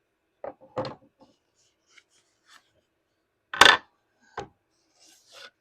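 A paperback manga volume being handled, with short rubs and knocks of paper and board. The loudest sharp knock comes about three and a half seconds in.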